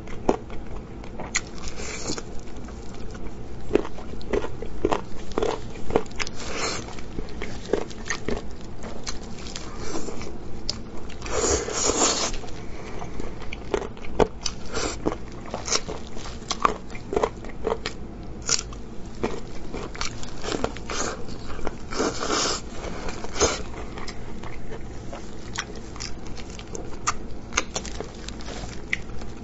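Close-miked eating of braised pork ribs: irregular crunchy bites and chewing as meat and gelatinous cartilage are torn off the bone, with a faint steady low hum underneath.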